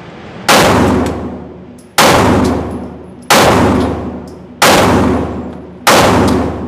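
Five 9mm pistol shots from a Glock 43X fired one-handed, evenly paced about 1.3 seconds apart. Each shot has a long echoing tail in the indoor range.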